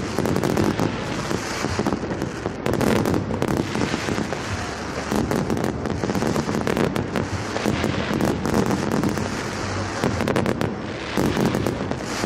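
Fireworks going off in a dense, continuous barrage of pops and crackles.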